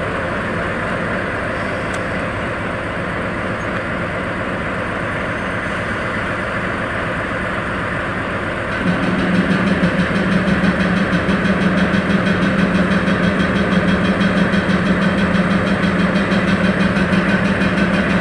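DE10 diesel-hydraulic locomotive's V12 diesel engine idling, then about nine seconds in it steps up to a louder, steady, higher drone as the throttle is opened for a slow departure.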